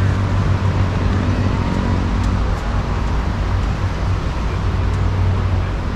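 Strong wind blowing across the microphone, with a steady low hum underneath.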